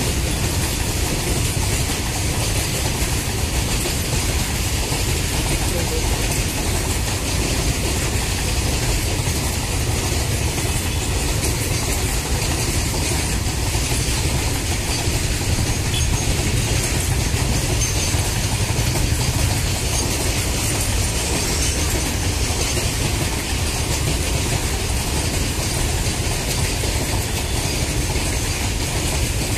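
A long freight train of covered box wagons rolling past at steady speed: a continuous rumble and rattle of wagon wheels on the rails.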